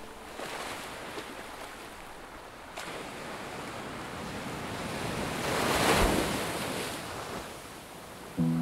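Ocean surf washing onto a beach, a wave building to a crash about six seconds in and then falling back. A few sustained music notes come in near the end.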